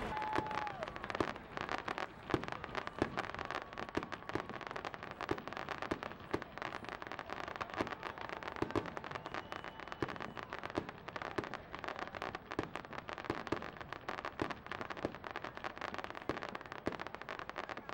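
Fireworks crackling: a dense, continuous rattle of small rapid pops from crackling aerial bursts, with some louder pops standing out.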